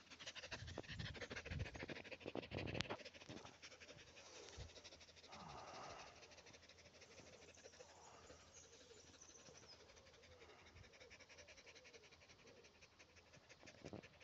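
A dog panting close to the microphone, with rubbing and bumps from fur and a hand against the phone, loudest in the first three seconds.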